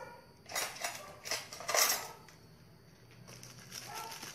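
Handling noise from food preparation on a plate: three short bursts in the first two seconds.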